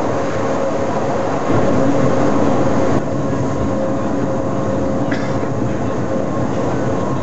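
Pilatus Railway cogwheel railcar climbing the rack, heard from inside the car: a steady, loud running rumble with a constant whine, louder for a second and a half or so near the start.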